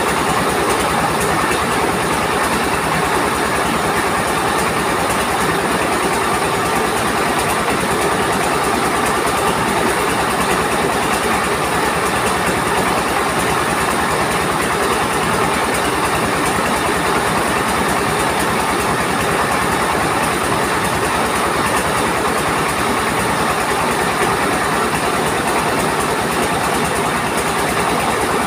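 Mobile rice mill running: a single-cylinder stationary diesel engine drives the belted rice huller and polisher in a loud, steady mechanical din, with a fast low pulsing underneath.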